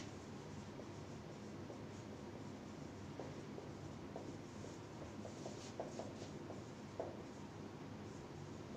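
Marker pen writing on a whiteboard: faint, short scratching strokes, most of them in the middle stretch, over a steady room hiss.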